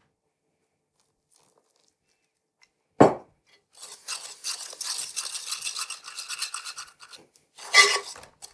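Fork scraping and stirring crumbly pie dough against the side of a glazed ceramic mixing bowl. After about three seconds of silence there is a single knock, then about three seconds of rapid scratching, with a louder scrape near the end.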